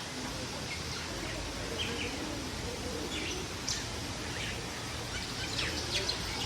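Caged birds chirping: short, high chirps and quick downward-sweeping calls come every second or so over a steady background hiss.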